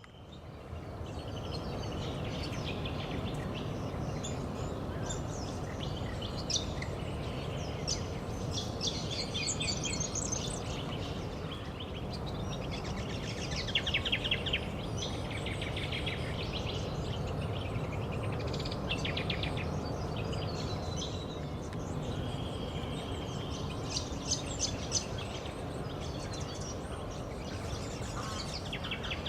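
Variegated fairywren song: bursts of high, fast trills and chirps every few seconds, over a steady low background rumble.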